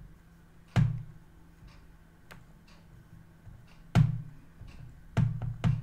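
Computer mouse clicking: a sharp click about a second in, another a few seconds later and two close together near the end, each with a dull thump through the desk, plus a few faint ticks.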